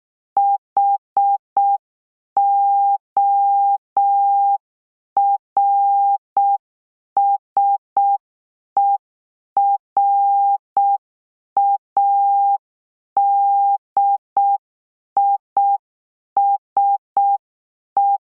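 Morse code practice tone: one steady mid-pitched beep keyed in short dots and longer dashes, spelling out "HORSERADISH" letter by letter, with a faint click at the start of each beep.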